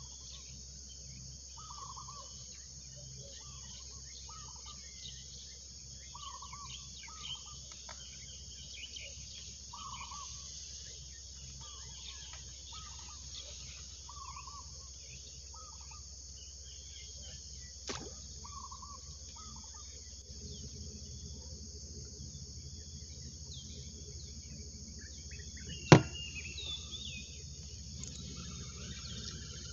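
Steady high trilling of insects, with short chirping calls repeated about once a second through the first two-thirds. There is a faint click a little past halfway, and a louder, sharp click near the end that is the loudest sound.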